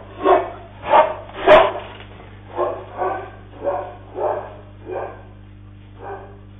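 A dog barking repeatedly, about nine barks, loudest over the first two seconds and then fainter and more spaced out, over a steady low electrical hum.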